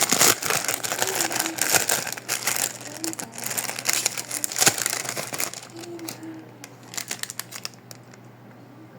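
Crinkly packaging rustling and crackling as craft supplies, likely a packet of balloons, are handled. The sound is dense for the first few seconds, then thins out and grows quieter.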